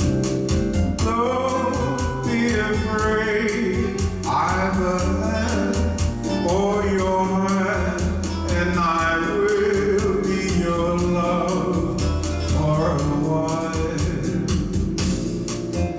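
Bossa nova accompaniment from a Yamaha PSR-S950 arranger keyboard: a steady rhythm with bass and chords under a gliding, voice-like lead melody.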